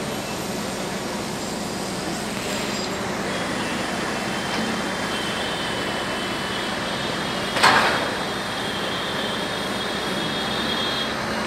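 Crawler crane engine running steadily under load while it holds a concrete pier cap, with a steady hum and a faint high whine in the second half. A short loud burst of noise cuts in about two-thirds of the way through.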